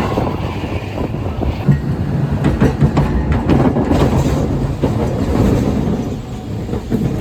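Tram running on its rails: a steady low rumble with irregular clatter and knocks from the wheels over the track.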